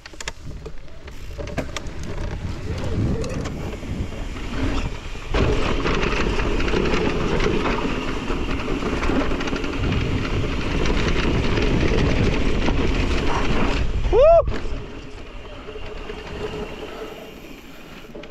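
Mountain bike ridden fast down a dirt trail: wind rushing over the camera microphone and tyres rolling on dirt, growing louder about five seconds in. About fourteen seconds in comes a brief squeal that rises and falls in pitch, the loudest sound, after which the noise drops back.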